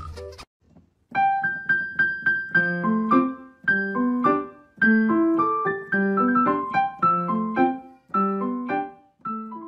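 Solo piano music playing a gentle melody of single struck notes in short phrases, starting about a second in after a brief cut-off of other music.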